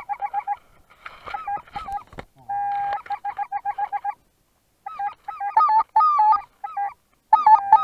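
Goose calls: rapid runs of short, even honks with a few longer held notes, in bursts separated by brief pauses. About a second in, dry grass and camouflage netting rustle against the head-mounted camera.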